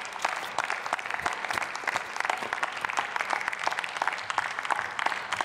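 Applause from a group of people: many hands clapping at once, with no pause.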